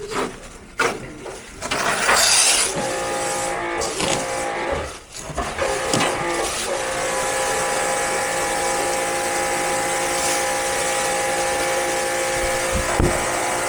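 A few knocks and clatter, a loud burst of hiss about two seconds in, then a steady machine hum with a constant whine over hiss that runs on unchanged.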